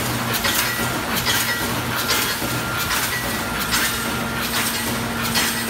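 JK-AW-1200 automatic chicken cage wire-mesh welding machine running through its welding cycles: metallic clacks and clatter about twice a second as the cross wires are welded and the mesh is fed forward, over a low hum that comes and goes.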